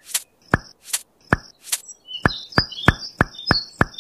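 A rapid, even series of sharp clicks, about two a second at first and then about three a second, with short high chirps over them from about halfway.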